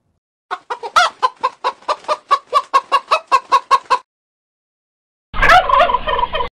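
Domestic hen clucking, a quick even run of about five clucks a second lasting three and a half seconds. After a short gap, a turkey gobbles in one rapid warbling burst of just over a second near the end.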